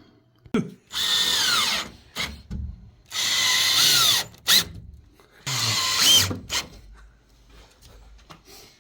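Power drill driving screws to hang sheetrock: three runs of about a second each, the motor's whine falling as each run ends, with short knocks between them.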